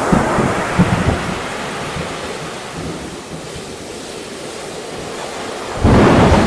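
Ocean surf in a storm: a steady wash of waves and wind that eases off in the middle, then a sudden loud low rumble near the end.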